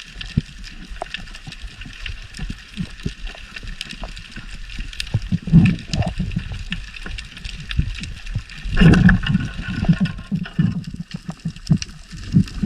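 Water sloshing and gurgling, with many scattered knocks and ticks and a couple of louder surges partway through.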